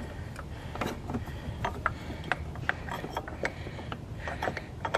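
Irregular metal clinks and knocks as a metal engine-mount bracket is fitted by hand over the passenger-side engine mount.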